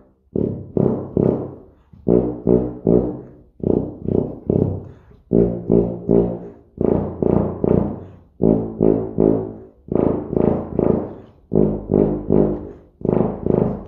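Schiller XL 5/4 C tuba being played: short tongued notes in quick groups of three or four, each group separated by a brief breath gap, repeating throughout.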